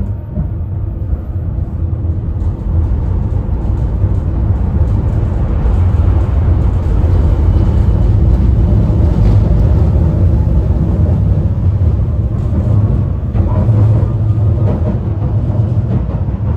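Steady low rumble of a 71-931M Vityaz-M tram under way, heard from inside the passenger cabin: wheels on the rails and running gear, getting louder over the first several seconds and then holding steady.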